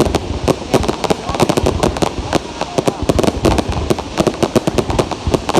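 Fireworks going off in a dense, irregular string of sharp bangs and crackles, several a second without a pause.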